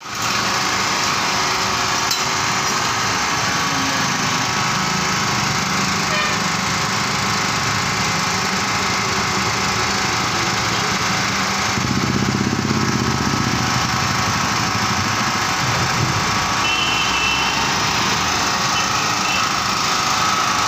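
Small air-cooled petrol portable generator engine running steadily at constant speed. A deeper hum swells briefly about twelve seconds in.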